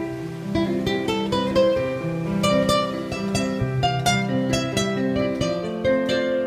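Instrumental passage on acoustic guitar and a Kurzweil stage piano: quick plucked guitar notes over held keyboard notes.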